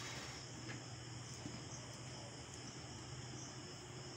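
Faint, steady high-pitched chirring of crickets in the background over a low hum, with a couple of faint ticks.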